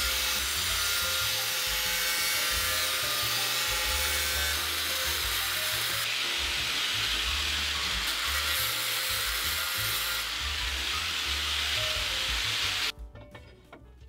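Abrasive cut-off disc grinding through a steel linear rail to cut it to length: a loud, steady, hissing grind that stops abruptly near the end.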